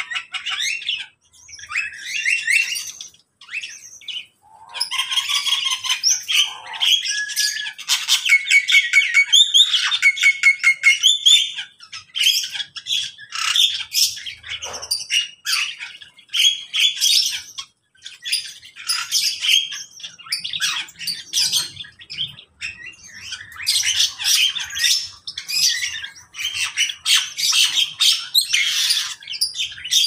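Many birds of mixed species in one shared aviary calling at once: overlapping chirps, squawks and whistles with brief lulls. The loudest stretch, about a third of the way through, is a fast run of evenly repeated chirps.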